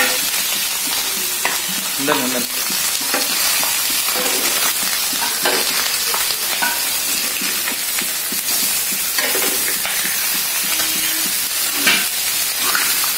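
Fish pieces sizzling steadily in oil on a flat griddle (tawa), with a steel spatula scraping and tapping on the griddle at irregular moments as the pieces are moved and turned, the sharpest scrape near the end.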